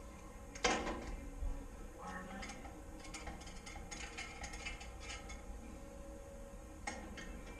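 Hand tools and electrical wire being handled: a run of small metal clicks and knocks, with a sharper knock near the start.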